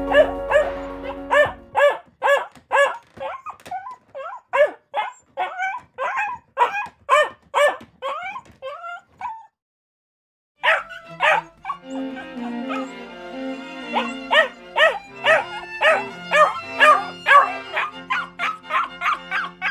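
A quick run of short, high dog-like yips and barks, about two a second, used as a cartoon dog's talking voice. They break off for about a second near the middle, and background music plays under them at the start and again from just after the break.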